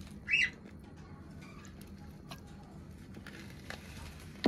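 A short bird chirp about half a second in, over quiet handling of kitchen utensils: a few light clicks, and a sharp click near the end.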